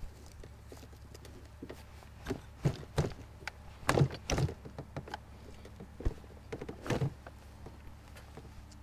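Scattered metal clicks, clinks and knocks of a screwdriver and scrench working on a Stihl chainsaw's bar and chain, the loudest about four and seven seconds in, over a low steady hum.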